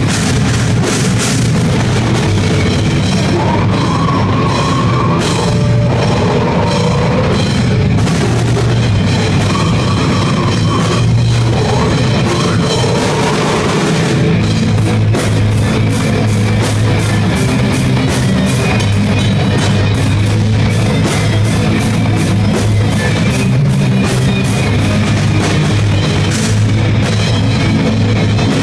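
Live rock band playing a loud, heavy song, with the drum kit prominent over distorted electric guitar. Fast cymbal strokes carry through the second half.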